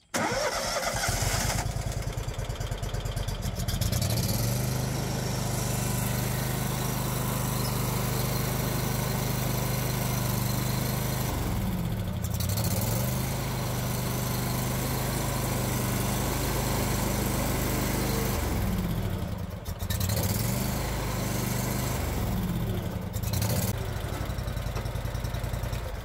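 Kohler V-twin engine of a Hustler Super S stand-on mower starting at once on the key and running steadily, its speed sagging and recovering a few times. The mower has a fault of dying when the PTO is engaged or the left steering lever is moved, which is traced to a faulty plunger safety switch.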